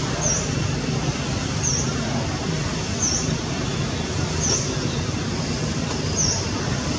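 Steady background rumble and hiss, with a bird repeating a short high chirp about every one and a half seconds.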